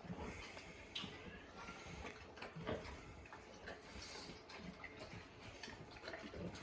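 A dog eating messily: faint, irregular clicks and smacks of chewing and licking.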